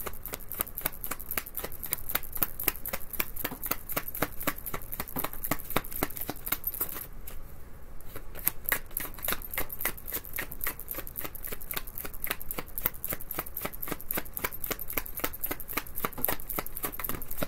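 A tarot deck being shuffled by hand, overhand style: a steady run of quick card slaps and flicks, about five a second, with a brief pause about seven seconds in.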